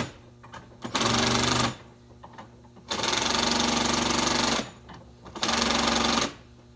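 Cordless impact driver hammering the nuts of a wire rope clamp tight, in three short runs: about a second in, a longer one near the middle, and one near the end. These are final tightening passes to check that the clamp is nice and tight.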